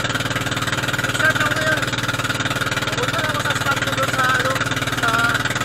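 Motorized outrigger boat's engine running steadily at cruising speed, with a man's voice talking over it.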